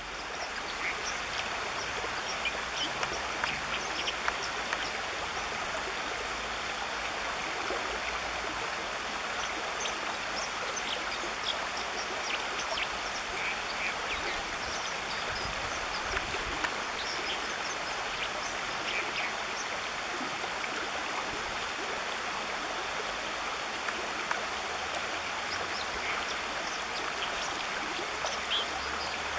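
Shallow stream running over stones: a steady rush of water, with scattered short high plinks and ticks.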